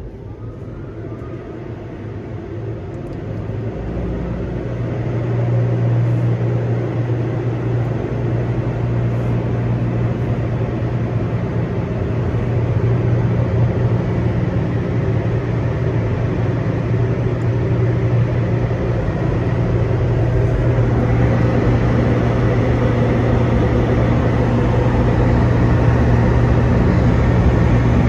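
Off-board MaxAir car-wash blower dryers running with a loud, steady low hum and rush of air. They swell up over the first few seconds and get louder again about three quarters of the way through.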